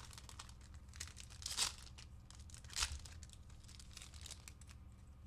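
A trading-card pack wrapper crinkling and tearing as it is ripped open. There are two louder rips, about a second and a half and about three seconds in, with light crackling and clicks between and after them.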